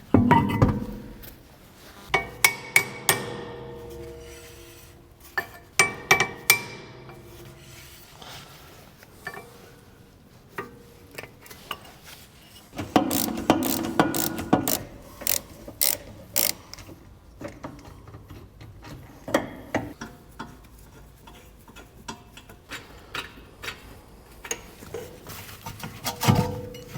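Hand tools working on metal car parts of a rear wheel assembly: irregular clusters of sharp clicks, knocks and clanks, busiest about halfway through.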